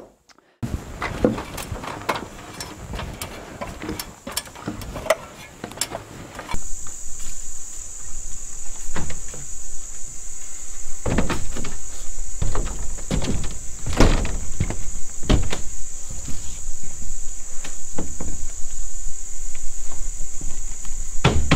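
Wooden truss lumber knocking and clattering as it is handled, then heavy thumps and clunks of footsteps and boards on a corrugated metal roof. From about six seconds in, a steady high insect drone runs underneath.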